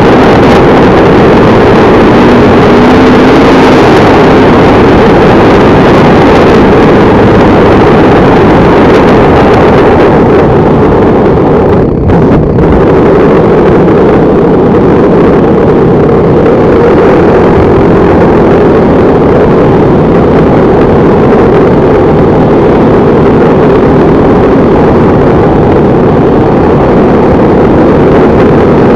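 Motorcycle engine running steadily under way, loud throughout, with one brief dip about twelve seconds in.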